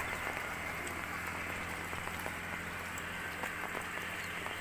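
Light steady rain falling, a drizzle of many small raindrops pattering as scattered ticks. A faint low steady hum runs underneath.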